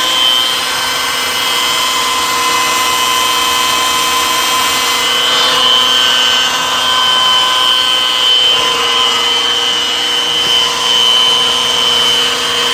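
Power drill running steadily under load, driving an oil-priming tool that spins the oil pump of a new 4.3 litre Vortec V-6 to push thick, cold oil through the engine. A steady whine holding a few fixed pitches.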